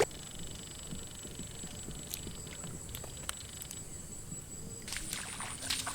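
Quiet wetland forest ambience with a thin, steady high-pitched insect whine and a few faint clicks; a louder hiss of water noise swells in near the end.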